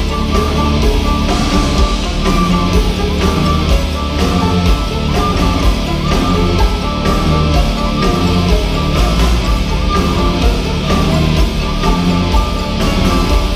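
A metal band playing live at loud volume, with heavy electric guitars, heard from within the concert crowd.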